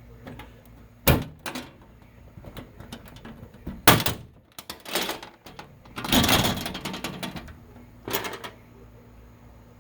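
Knocks, clicks and rattling of a thin aluminum storm shutter and its coat-hanger prop being handled, with three sharp knocks (the loudest about four seconds in) and a longer scraping rustle about six seconds in.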